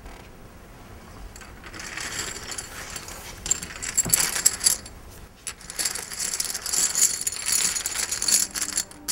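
Poker chips clattering and clicking against each other as a pile is pushed and gathered across the table, in two long spells of rapid clicks.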